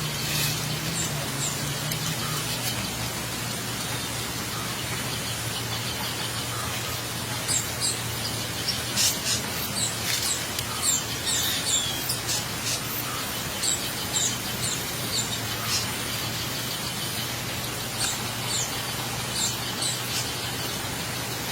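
Small birds chirping in short, high calls, busiest in the middle stretch, over a steady low hum and background hiss.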